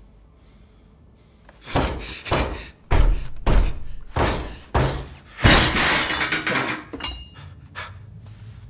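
A man striking and smashing things on an office desk. Heavy thuds and crashes start about two seconds in, and the loudest is a long shattering crash about halfway through. A few lighter knocks follow.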